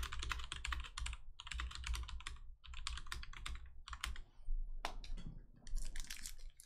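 Typing on a computer keyboard: quick runs of keystrokes with short pauses between them.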